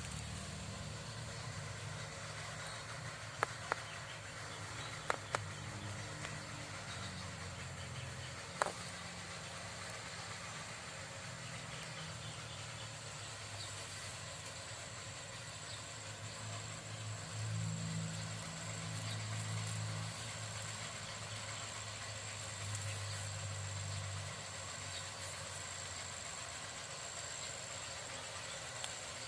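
Steady low rumble like a motor, swelling a little about two-thirds of the way through, under a thin, steady high whine, with a few sharp clicks in the first nine seconds.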